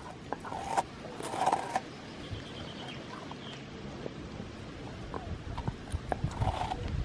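A dog licking and chewing a ball of frozen wet dog food, with irregular wet bites and clicks. The loudest crunchy bites come about a second in and again near the end.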